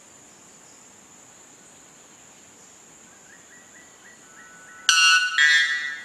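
Male white bellbird giving its Type 2 song, the species' loudest call: two very loud ringing notes back to back about five seconds in. A steady high whine runs underneath throughout.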